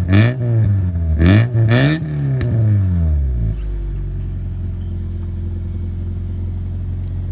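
1997 Honda Civic's four-cylinder engine running through a freshly installed straight-pipe exhaust, revved loudly in several quick blips, then dropping back to a steady idle about three and a half seconds in.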